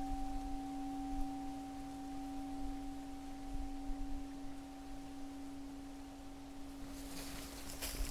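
A Zen standing bowl bell ringing out after one strike: a low, steady tone with a fainter higher overtone, slowly fading. Rustling starts near the end.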